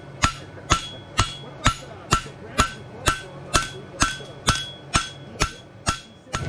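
Farrier's hammer striking a steel bar shoe on the anvil in an even rhythm of about two blows a second, each blow leaving a short metallic ring, as the shoe's toe is flattened out.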